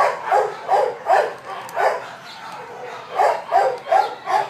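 Dog barking in short, quick barks, about nine in all, with a pause of about a second in the middle.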